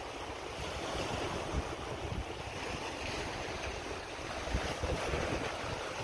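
Small waves washing against a rocky shoreline, with wind gusting on the microphone.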